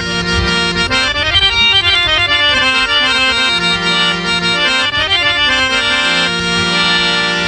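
Harmonium playing an instrumental melody of quick stepped notes over a held low drone, with hand-drum beats underneath.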